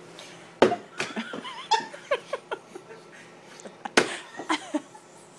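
Laughter and giggling, broken by two sharp knocks, one shortly after the start and one about four seconds in, each followed by more laughter.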